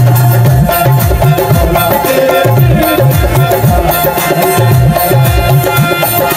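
Live qasida music: harmoniums playing sustained chords and melody over a drum beating a steady rhythm of low strokes.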